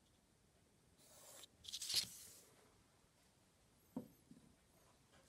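A red coloured pencil drawn along a plastic ruler across card: one scratchy stroke lasting about a second that grows louder to its end. A single sharp click follows about four seconds in.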